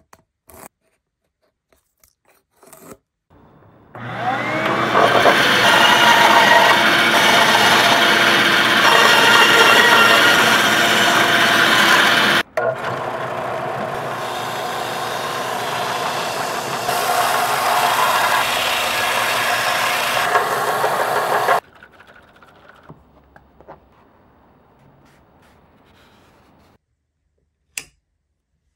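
Light taps and scrapes, then about four seconds in a Central Machinery benchtop belt sander starts up and runs loudly with wood pressed against the belt, for about 17 seconds with a short break midway. It stops suddenly, leaving faint handling sounds and a single click near the end.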